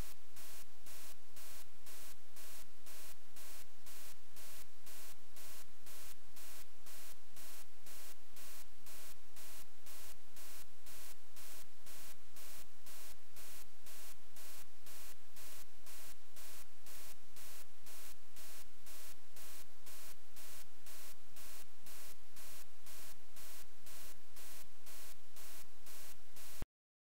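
Steady electronic static hiss, pulsing evenly about twice a second, that cuts off suddenly near the end.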